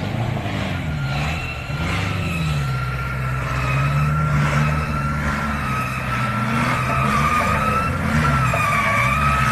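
Daihatsu Taft 4x4's engine revving up and down under load as it climbs a deep mud rut on a cable, with a high whine over it that wavers in pitch.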